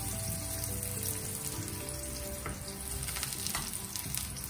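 Eggplant slices sizzling as they fry in shallow oil in a stainless steel pan, with a couple of small pops near the middle. Soft background music plays underneath.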